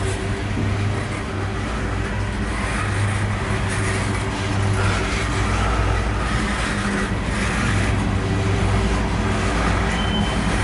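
Loaded coal hopper cars of a freight train rolling past at close range, a steady rumble of steel wheels on rail.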